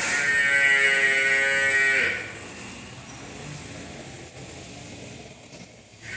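A water buffalo mooing: one call of about two seconds at a steady pitch that cuts off, with another call starting at the very end.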